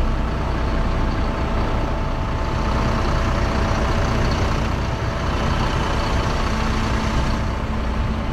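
Rear-mounted diesel engine of an Ashok Leyland BS-6 low-floor city bus idling steadily: a deep hum under an even mechanical rush, with a few steady tones held throughout.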